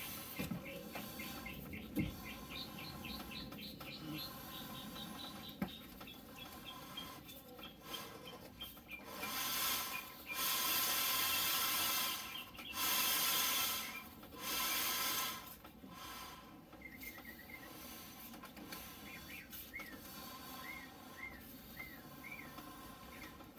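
Small birds chirping in quick repeated series, broken in the middle by four loud bursts of hissing, each a second or two long, and a few faint knocks.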